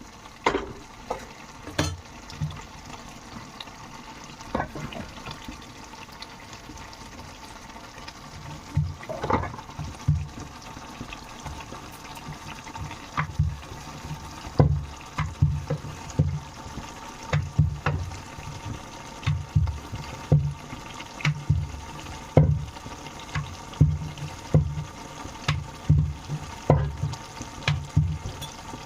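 Chicken in thick gravy cooking in a pan: a steady hiss of frying and bubbling, broken by frequent short, low thuds and a few sharp clicks.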